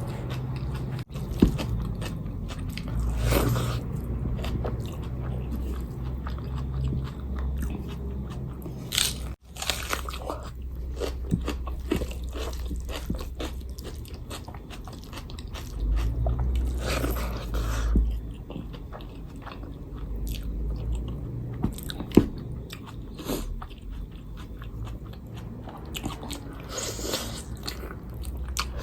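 Close-miked eating: a person chewing and biting food, with many sharp mouth clicks and smacks, continuing steadily with occasional louder bites.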